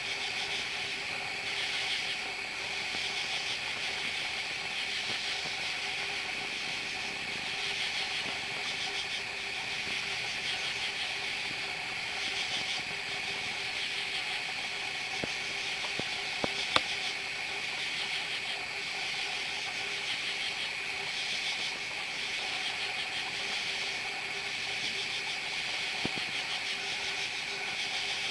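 Night insect chorus: crickets trilling steadily, with katydids calling in repeated pulses over them. A couple of sharp clicks stand out about two-thirds of the way through.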